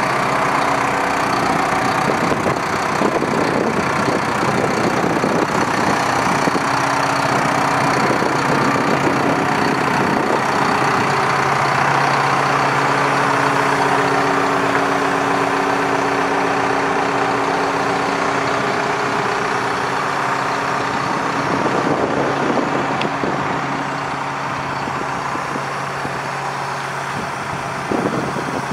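Diesel engine of a Liebherr A900C wheeled excavator running steadily at idle, heard up close.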